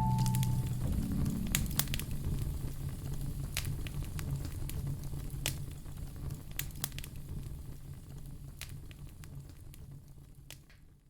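Wood fire in a fireplace crackling, with scattered sharp pops over a low steady rumble. It fades gradually and is nearly gone by the end. The last soft music notes die away in the first second.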